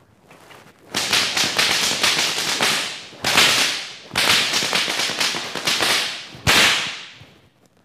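A pair of stockwhips cracked in fast flurries, many sharp cracks a second, in about four bursts that each trail off; the cracking starts about a second in and stops about seven seconds in.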